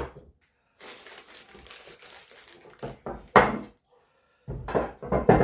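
Crinkling and rustling of parts packaging being handled, with a sharp loud crackle a little past halfway and another stretch of loud handling near the end.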